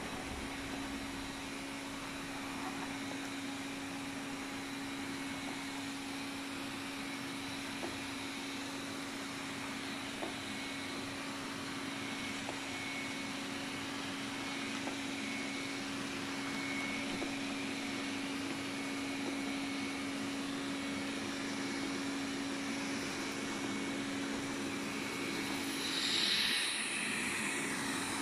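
Xiaomi Mijia 1C robot vacuum running steadily, its motor giving a constant hum over a hiss. Near the end there is a brief louder whoosh.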